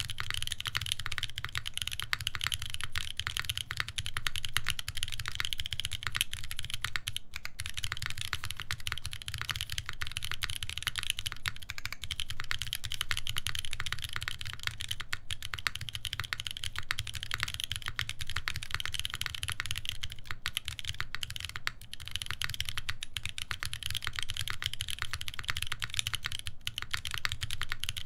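Continuous fast typing on a custom mechanical keyboard with lubed Boba U4T tactile switches, a full FR-4 plate and GMK keycaps: a dense stream of deep, muted keystrokes with a brief pause about seven seconds in.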